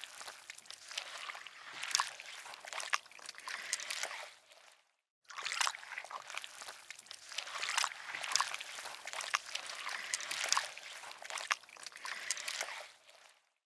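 Water trickling and splashing in a dense patter of small drips. It cuts out briefly about five seconds in and then carries on.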